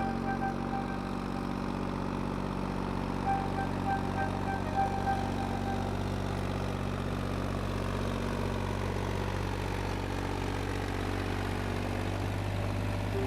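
An engine running steadily with a low hum, a little stronger in the second half. A thin high whistling tone comes and goes over it in the first few seconds.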